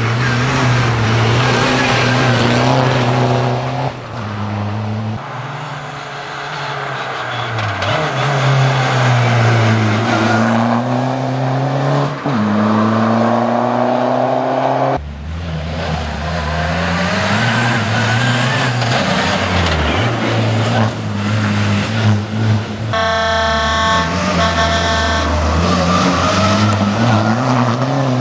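Škoda Fabia RS rally car's 1.9 TDI turbodiesel engine driven hard past the microphone in several passes, climbing in pitch through each gear and dropping back at the shifts. Near the end a brief high tone sounds twice over the engine.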